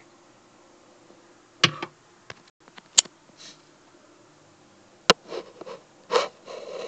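Handling noise from a plastic fashion doll being held and turned close to the microphone: a few sharp clicks and knocks, about four in all, with soft rustling near the end, over a faint steady room hum.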